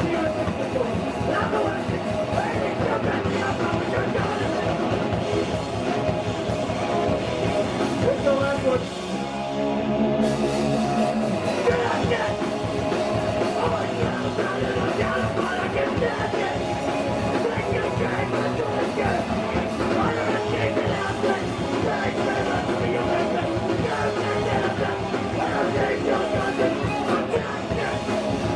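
Live hardcore punk band playing loud, distorted guitars, bass and drums. About nine seconds in, the band drops briefly to a single held chord, then crashes back in at full force.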